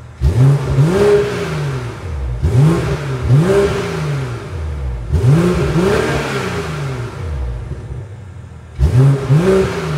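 Stock exhaust of a BMW X3 M40i's B58 turbocharged 3.0-litre inline-six, with the factory downpipe and particulate filter, as the stationary car is given a series of short throttle blips. Each rev climbs and falls back quickly, several in quick succession, then a pause of about two seconds before a last pair near the end.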